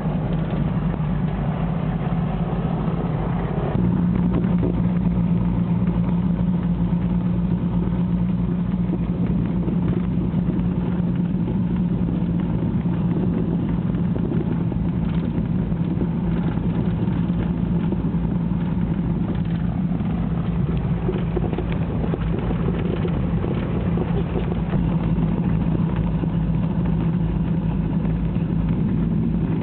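Small private plane's engine drone heard inside the cabin, steady and even, stepping up slightly in pitch and loudness about four seconds in.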